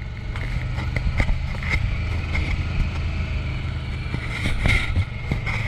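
Vehicle engine running steadily at low revs, with a few brief knocks or rattles.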